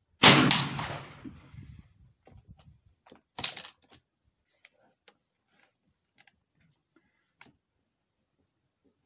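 A single shot from a Martini-Henry rifle chambered in .577/450: a loud report about a quarter-second in that rings down for over a second. About three seconds later comes a shorter, sharp metallic clack as the breech lever is dropped to open the action, followed by a few faint clicks of handling.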